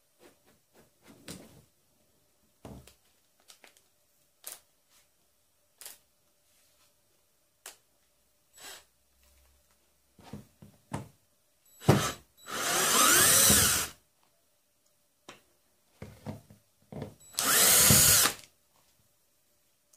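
Cordless drill-driver running twice in short bursts, about a second and a half and then about a second, turning a screw with a hex screwdriver bit. Before that, small clicks and taps of bits and parts being handled.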